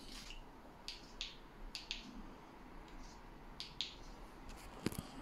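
Faint handling noises from hands on an electric scooter's stem and handlebar: a few soft ticks and brief rustles scattered through, with one sharper click near the end.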